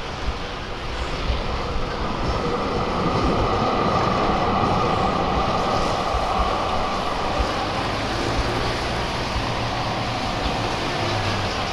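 Street traffic with a tram passing: a steady rumble and hum that swells over a few seconds and then eases off.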